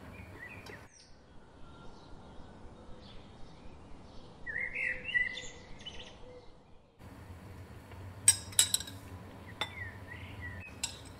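Birds chirping in the background, with short wavering calls and a denser flurry partway through. A few sharp clinks of kitchenware come late on and are the loudest sounds.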